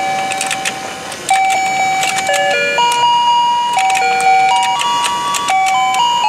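Battery-powered rotating fishing game toy playing its electronic tune, a simple melody of held single notes stepping up and down, over the clicking of its turning plastic plate and fish.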